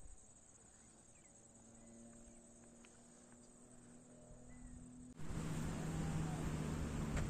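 Faint outdoor ambience: a steady high-pitched hiss or drone with a few faint short chirps. About five seconds in, a much louder rushing noise starts abruptly.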